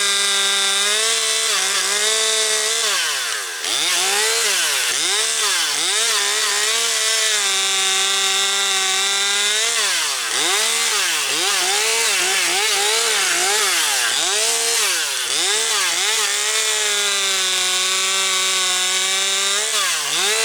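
Husqvarna 540XP Mark III two-stroke chainsaw cutting up storm-broken branches. It is held at high revs, and its pitch drops and climbs back many times as the throttle is let off and squeezed again.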